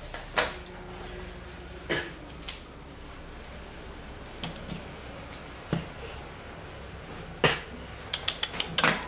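Sigma 24-70 mm zoom lens being handled: its plastic and metal barrel parts knock and click now and then, the loudest knock about seven and a half seconds in. Near the end a quick run of small clicks comes as the barrel sections are twisted against each other.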